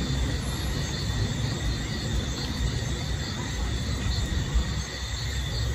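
Outdoor night ambience: a steady low rumble with a faint, thin high-pitched insect trill over it.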